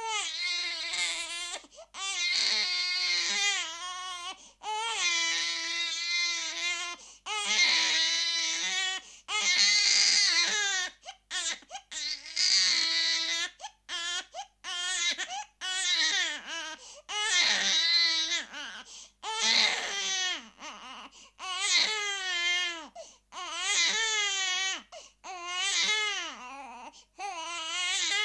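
Baby crying hard: one high-pitched wail after another, each a second or two long with quick breaths between, the pitch rising and falling within each cry.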